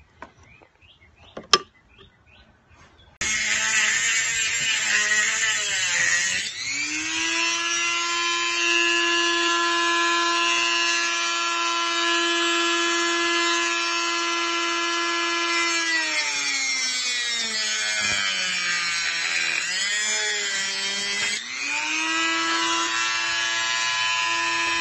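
A couple of clicks, then a Dremel-type high-speed rotary tool starts about three seconds in and runs with a steady high whine. Its pitch sags and recovers twice as it grinds out the clutch lever so the too-thick cable fitting will fit, and it cuts off at the very end.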